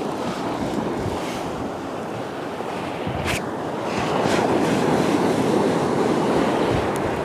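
Sea surf breaking and washing up the beach, swelling louder about four seconds in as a wave comes ashore.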